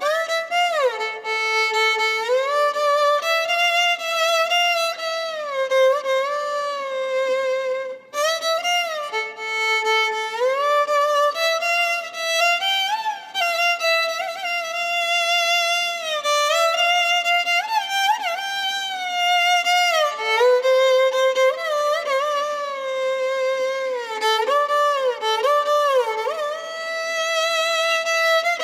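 Background music: a single bowed violin melody with sliding, ornamented notes, pausing briefly about eight seconds in.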